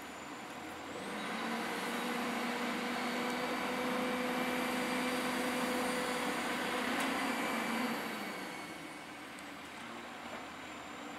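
Autocar garbage truck's diesel engine rising from idle to a steady higher speed about a second in, holding there with an even drone for about seven seconds, then dropping back to idle.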